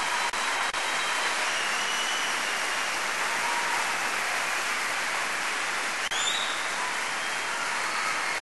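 Audience applause, a steady dense clatter, with a faint rising whistle about six seconds in.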